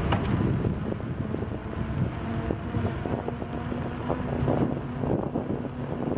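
Wind rushing over a bicycle-mounted microphone while riding, with the tyres rolling on the paved trail and small clicks and rattles from the bike.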